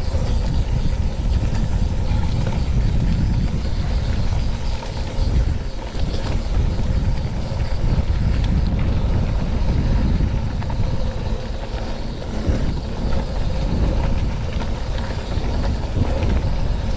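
Mountain bike descending a dirt trail at speed: steady wind noise on the microphone and the rumble of the tyres over the ground, with small knocks and rattles scattered through it.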